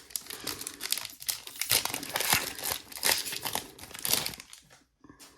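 Foil trading-card pack being torn open and crinkled by hand: a run of crackling and tearing that dies away about four and a half seconds in.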